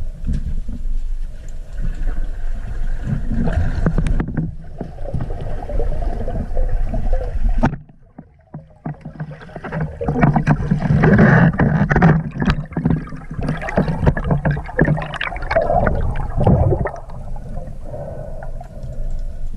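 Underwater camera audio: water rushing and bubbling around a freediver, with crackling. It drops out briefly a little before halfway, then returns louder with a low steady hum.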